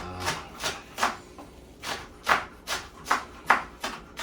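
Kitchen knife chopping green onions on a cutting board: a steady run of short strokes, about two or three a second, with a brief pause a little over a second in.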